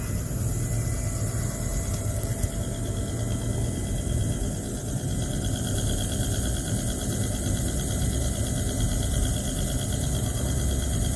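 Magnetic stirrer running steadily, its motor giving a constant hum and low rumble as the stir bar spins in a beaker, stirring aluminium nitrate and sugar solutions.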